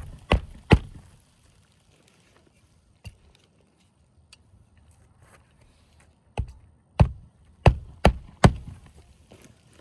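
Hammer driving roofing nails into an asphalt shingle: two strikes right at the start, a quiet pause, then five quick strikes about half a second apart in the second half.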